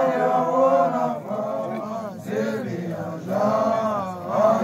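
A group of voices chanting in long held phrases, with a short, broken-up pause in the middle before the chant swells again.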